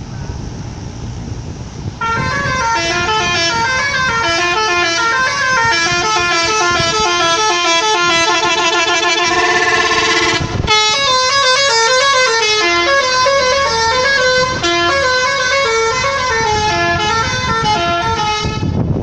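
Bus 'telolet' multi-tone air horn playing a quick, stepping melody of horn notes, starting about two seconds in over a low rumble. It breaks off briefly about halfway, plays on, and stops near the end.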